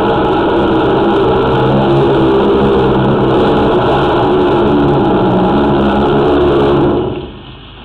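High-pressure drain jetter's engine and pump running steadily, then dropping sharply to a much lower level about seven seconds in.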